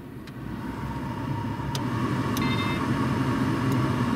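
Repaired Delphi heater blower motor of a 2008 UAZ Patriot running after being switched on, its hum building over the first two seconds and then holding steady, with a few faint clicks. The motor now turns, the sign that the repair worked.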